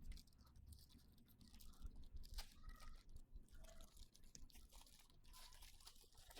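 Near silence, with a few faint scattered clicks and rustles of something being handled.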